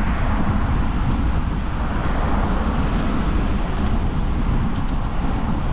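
Steady wind rush and road noise on a riding camera's microphone while the bike moves along.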